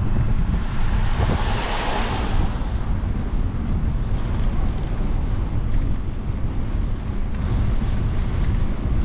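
Wind buffeting the microphone of a camera on a moving bicycle, a loud, steady low rumble. About a second in, a brief rushing hiss swells up and fades away again.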